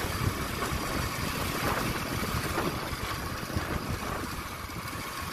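Steady engine and road noise from a vehicle travelling along a paved road, with an uneven low rumble.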